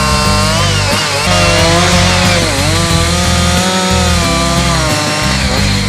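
Chainsaw engine revving up and down as it cuts into wood, its pitch rising and falling, over background music with a bass line.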